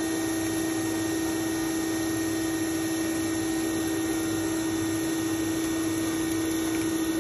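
Steady hum of running machinery, with one strong low steady tone over an even background noise.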